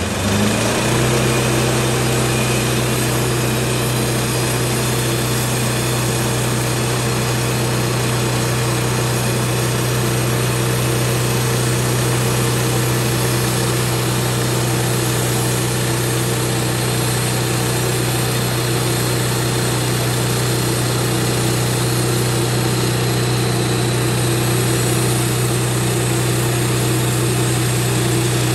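Engine of a Wood-Mizer LT15 portable band sawmill running steadily at speed, with the band saw turning; it winds up and settles about a second in.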